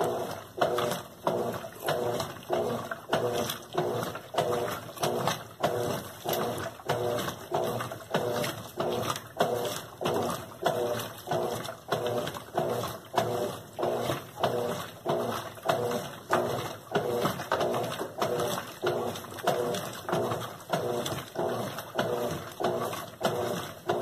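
Colormaq LCA11 top-load washing machine agitating a load, about one and a half strokes a second, each stroke a swish of water and clothes with a pitched whirr from the drive. The machine makes a bearing noise, which the technician takes for a worn bearing, along with a gearbox (câmbio) problem.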